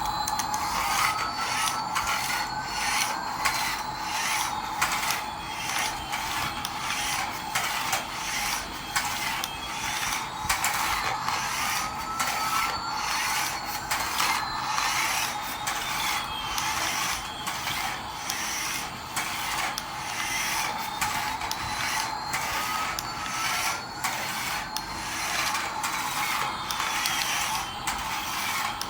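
A small geared toy motor runs steadily with a rapid, even clicking. Faint tones slowly rise and fall about every ten seconds.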